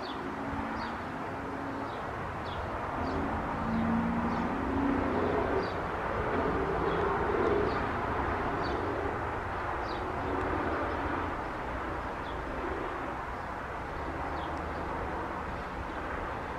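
Steady rumble and hiss of distant road traffic, with an engine hum in the first few seconds. Faint, short, high bird chirps come about once a second over it.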